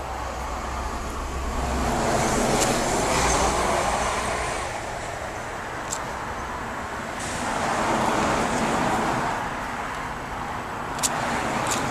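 Road traffic going by: a steady rushing noise that swells and fades twice as vehicles pass, with a few short sharp clicks.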